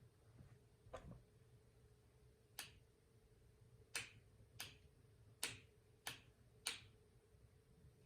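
About seven sharp, separate clicks at irregular intervals, most likely the switch of a HELLER oil-filled electric heater being flicked on and off again and again. The heater does not start.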